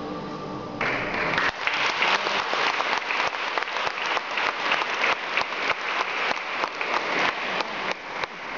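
Recorded music ending within the first second, then an audience clapping steadily.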